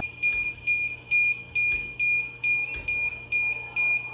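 Pet drying cabinet sounding its high-pitched warning alarm, beeping about twice a second. The dryer's steady blowing noise cuts off abruptly just as the beeping starts.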